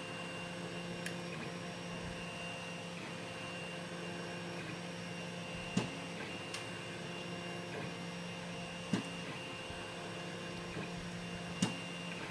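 A handful of short, sharp clicks spread through the stretch as a short hook pick works the pin stacks of a repinned Kwikset lock, over a steady electrical hum.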